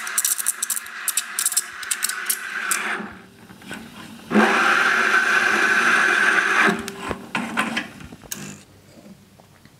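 Lelit Mara E61 espresso machine's steam wand hissing, with crackles and clicks, for the first three seconds. A louder, steady hiss starts suddenly about four and a half seconds in and stops after about two seconds, followed by a few clicks as it quietens.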